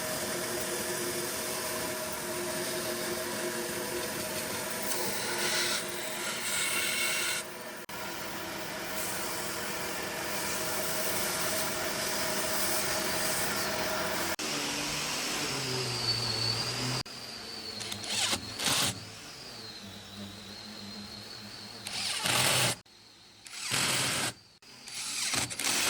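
Electric power tool motor running steadily with a constant hum, then changing pitch and cutting in and out in short loud bursts in the second half.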